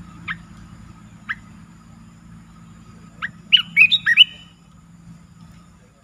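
Bulbul calls: two short single notes about a second apart, then a quick run of sharp chirped notes about three seconds in, the loudest part.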